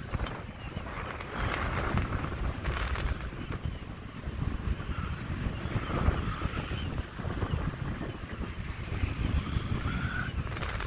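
Strong wind buffeting the microphone in uneven gusts, a low rumbling noise.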